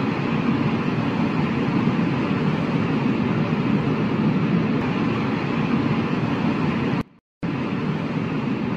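Steady rumbling noise from a logo-animation intro, heavy in the low end with a hiss above, with no melody or beat; it cuts out for a moment about seven seconds in and then carries on.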